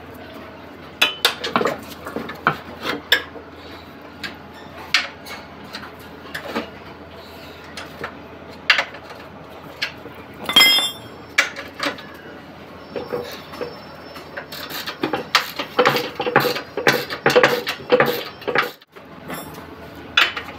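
Metal hand tools, a wrench and a ratchet, clinking and knocking against a steel front subframe and steering rack as the rack's bolts are undone. The clinks are sharp and scattered, with one ringing clink about ten seconds in and a quicker run of clicks and knocks from about fifteen to eighteen seconds in.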